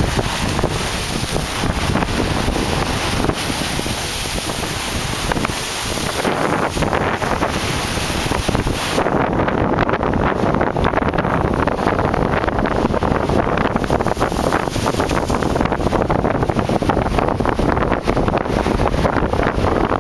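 Strong wind buffeting the microphone over lake waves breaking and washing against breakwater boulders, a steady rushing noise. The high hiss thins out about halfway through.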